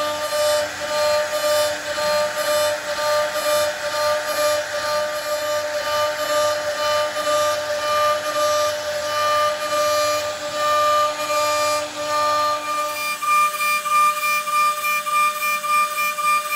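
CNC router spindle whining at a steady pitch while cutting wood, with a hiss of cutting that rises and falls. Near the end the sound changes: the lower part drops away and a higher whine remains.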